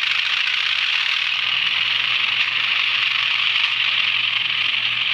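Sound decoder in an N gauge Class 37 model locomotive playing its diesel engine sound through the model's tiny speaker as the loco pulls slowly away: a steady hiss with a low, even hum underneath.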